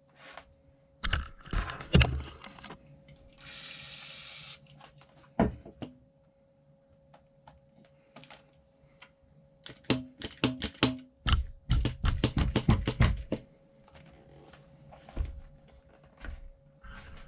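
Workshop handling sounds from taking apart and servicing a suspension seatpost: scattered clicks and knocks of metal parts and tools, a short hiss about three seconds in, and a fast run of clicks lasting about two seconds past the middle.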